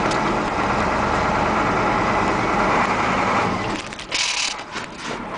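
Ford F800 truck's Caterpillar V8 diesel engine running as the truck creeps slowly over rough ground, heard from the cab. The engine sound drops away about three and a half seconds in, followed by a short high hiss.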